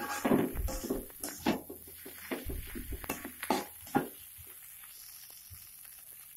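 Metal slotted spatula scraping and knocking against a wok while stir-frying fried rice: irregular scrapes and clicks for about four seconds, then only faint stirring.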